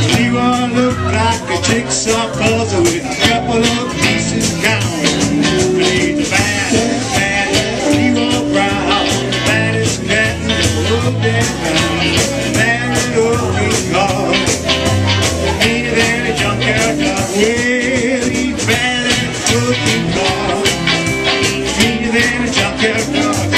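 Live rock band playing, with electric guitars over a drum kit keeping a steady beat with cymbal hits.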